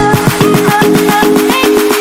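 Electronic background music with a fast, steady beat and a held synth tone.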